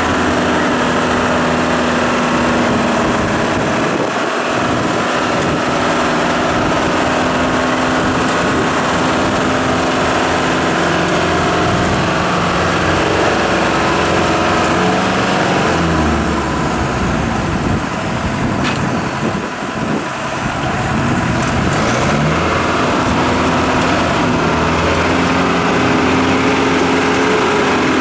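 Off-road trial vehicle engines running hard under load as the trucks churn through deep mud, the engine note steady with a few shifts in pitch.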